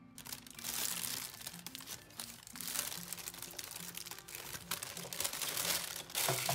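Disposable plastic piping bag crinkling and rustling as it is handled and pulled down over a plastic cup, loudest near the end, over soft background music.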